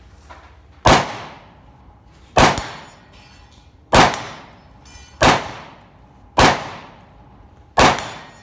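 Six single shots from a carbine, fired one at a time about one to one and a half seconds apart, each followed by a short decaying echo.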